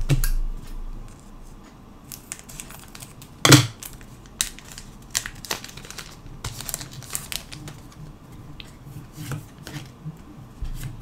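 Foil booster pack of Pokémon cards crinkling as it is handled and torn open. There is a thump at the start, a loud crackle or rip about three and a half seconds in, then scattered crinkles and small clicks from the wrapper and cards.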